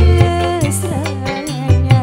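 Live dangdut band music: a held, wavering melody over electric bass, guitar and sharp hand-drum strikes.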